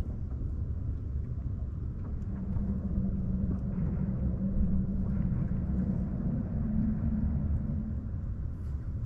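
Low outdoor rumble, with the steady hum of a distant engine coming in about two seconds in and fading out near the end.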